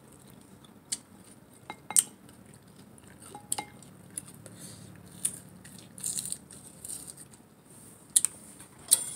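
Sour tamarind pods being handled and the fruit chewed: scattered sharp clicks and crackles a second or so apart.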